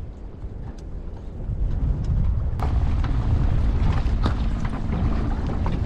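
Wind buffeting the microphone on a boat at sea, with a low rumble of water. About two and a half seconds in it grows louder and a steady low hum joins, with a few light clicks.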